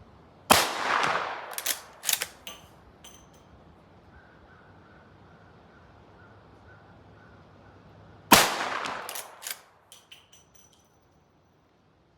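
Two rifle shots from a Rossi R92 lever-action carbine firing .38 Special loads, about eight seconds apart, each with a short echoing tail. A second or so after each shot come two or three metallic clacks as the lever is worked to eject the case and chamber the next round.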